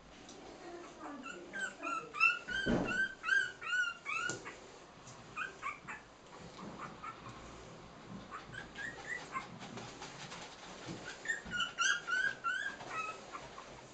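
Three-week-old Cairn terrier puppies squeaking and whimpering: runs of short, high squeaks that rise and fall, one bout in the first few seconds and another near the end. A dull bump is heard about three seconds in.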